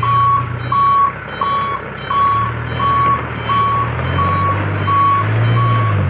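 Sand-laden dump truck reversing: its reversing alarm sounds a steady series of short high beeps, about three every two seconds, over the low running of its engine.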